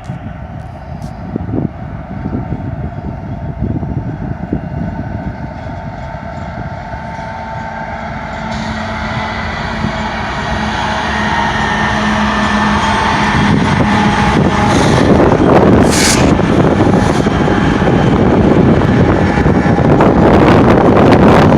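An intermodal freight train's diesel locomotives, led by a GE ES44C4, approaching and getting steadily louder, with steady engine tones. From about three-quarters of the way in, a much louder rush of engine and wheel noise takes over as the locomotives come close and pass.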